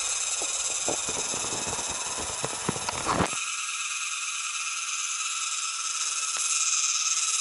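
Steady high-pitched drone of a forest insect chorus. A few rustles and sharp clicks in the first three seconds stop suddenly.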